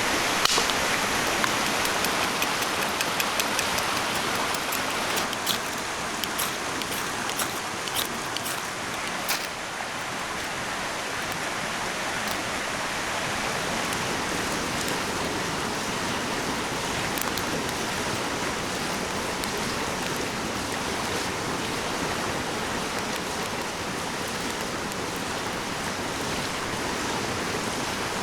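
Steady rushing of running water, with a scatter of sharp clicks over the first ten seconds or so.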